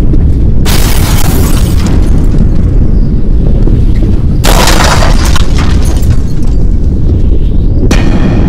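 Heavy wind buffeting the microphone: a loud, constant deep rumble with two strong rushes of hiss, one about a second in and another about halfway through, and a brief one near the end.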